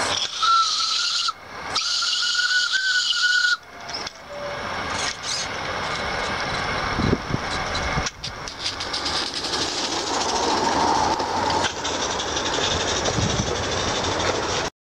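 Roundhouse Vale of Rheidol live-steam garden-railway locomotive sounding its steam whistle twice, a short blast and then a longer one of about two seconds. It then pulls its train away with a steady hiss of steam and light clatter of wheels on the track.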